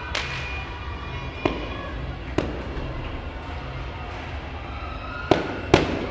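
Aerial fireworks bursting: about five scattered sharp bangs, the two loudest close together near the end, over a steady low background hum.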